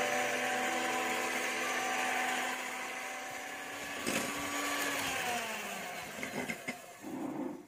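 Electric hand mixer whirring as its twin wire beaters whip egg whites to foam in a ceramic bowl. The motor's pitch drops about five seconds in and the sound dies away near the end.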